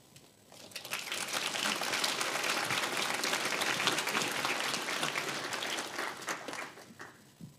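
An audience applauding, a dense patter of many hands clapping that builds up about half a second in, holds steady and fades out shortly before the end.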